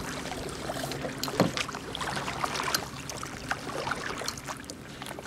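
Kayak paddles working the water: irregular splashes and drips, with a sharper knock about a second and a half in.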